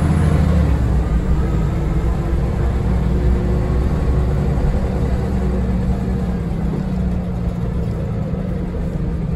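Scania DC9 diesel engine of a Scania L94UB bus running steadily with a low rumble, heard from inside the passenger cabin.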